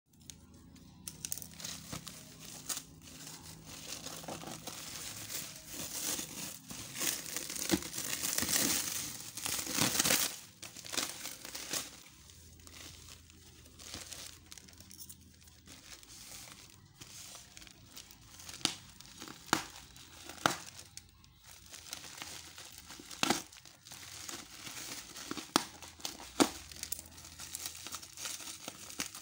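Packaging being handled and opened around a KYB shock absorber: crinkling, rustling and tearing, loudest and most continuous for a few seconds before the ten-second mark. After that come scattered sharp clicks and knocks as the parts and box are moved.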